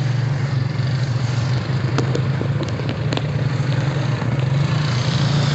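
Honda Rancher ATV engine running steadily through mud, with a few sharp knocks about two to three seconds in.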